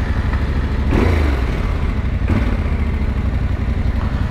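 Yamaha Ténéré 700 parallel-twin engine running with the bike standing still, with two short swells in engine sound about a second and two seconds in.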